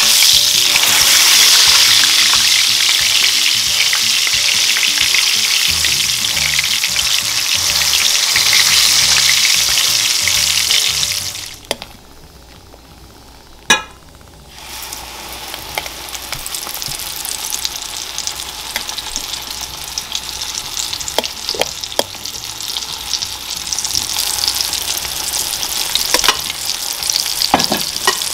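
Egg-battered dried salt fish frying in hot oil in a skillet: a steady loud sizzle. About halfway through, the sizzle drops away for a few seconds with a single click, then comes back softer, with scattered crackles and pops.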